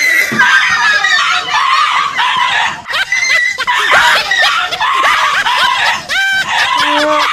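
Dog yelping and shrieking in fright at a fake stuffed tiger: a dense, unbroken run of short high cries.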